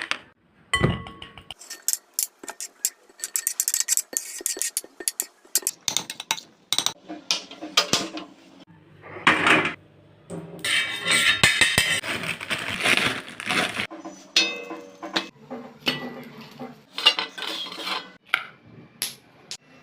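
Kitchen utensils and dishes clinking and tapping, many sharp knocks in a row, with a few longer stretches of scraping or rubbing about midway, as a sandwich is put together.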